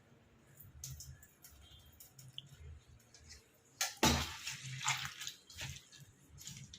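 Soft wet squishing and small clicks as a boiled-pasta vadai mixture is kneaded by hand, with a louder noisy burst about four seconds in.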